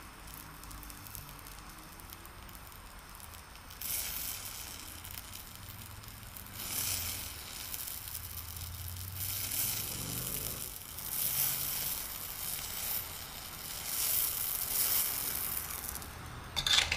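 Oxy-acetylene powder-spray torch (Eutalloy Ultra Jet) hissing against a steel shaft end as it lays down a metal overlay on the worn surface. Louder rushes of hiss come every couple of seconds, and there is a sharper, louder burst just before the end.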